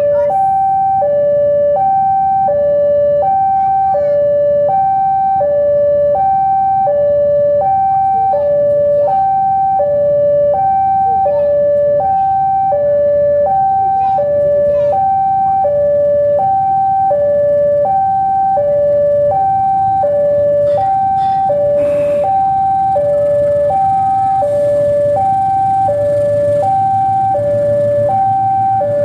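Railway level-crossing warning alarm sounding a steady two-tone hi-lo pattern, a higher and a lower tone alternating about every 0.7 s, signalling that a train is approaching. A low rumble builds underneath in the last third.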